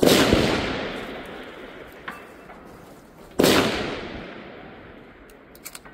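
Two rifle shots about three and a half seconds apart, each a sharp crack followed by a long echo that rolls off over a couple of seconds.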